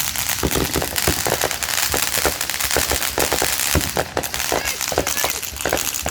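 Fireworks going off in a dense crackle of rapid, overlapping pops with no break.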